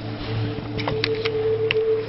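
Background music of sustained low droning notes, with a few light clicks in the middle.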